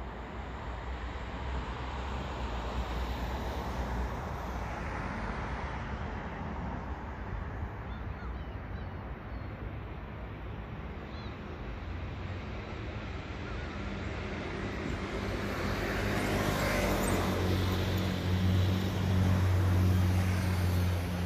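Steady traffic hum, with a motor vehicle's engine drone building in the second half and becoming the loudest sound near the end as it passes close.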